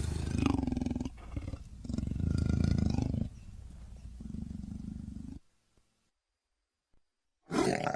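Dromaeosaurus dinosaur sound effect: a run of low, rough growls, the last one quieter, cutting off about five and a half seconds in; after a pause a short, loud call starts near the end.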